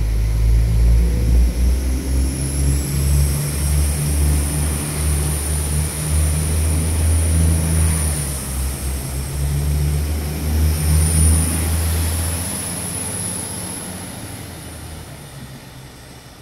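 Three coupled Alstom Coradia LINT 54 diesel multiple units pulling away from a station under power. Their diesel engines give a heavy low drone, with a high whine rising and falling above it. The sound fades steadily over the last few seconds as the train draws away.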